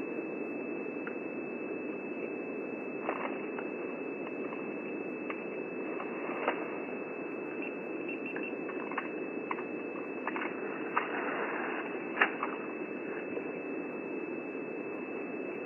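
Elephant feeding on branches: scattered sharp snaps and cracks of twigs and bark, the loudest about twelve seconds in, over a steady hiss with a thin high whine.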